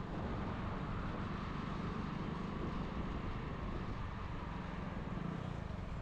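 Steady road and traffic noise from a moving vehicle, a continuous low rumble with no distinct events.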